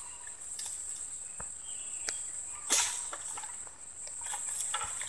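A steady high-pitched insect drone, with scattered crackles and rustles of dry leaves and twigs being brushed and stepped on; the loudest is a brief crunching rustle a little before the middle.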